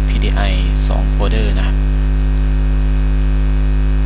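Loud, steady electrical mains hum on the recording: a low buzz with a stack of evenly spaced overtones that never changes. A few brief, soft voice sounds come in the first second and a half.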